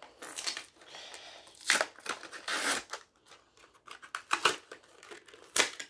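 Plastic blister and cardboard backing of a Hot Wheels car package crinkling and tearing as the car is pried out, in a run of short rustles and rips, loudest at about two seconds and again just before the end.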